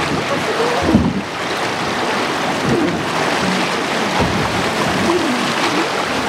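River rapids rushing and splashing past the side of a river boat as it runs through whitewater.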